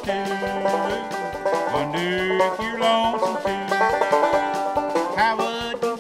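Five-string banjo picking an instrumental break in a bluegrass-style tune, with a steady run of quick picked notes.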